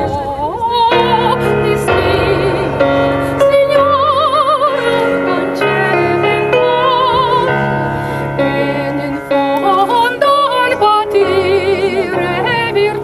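A woman singing opera-style with wide vibrato on held notes, accompanied by an electronic keyboard playing sustained chords.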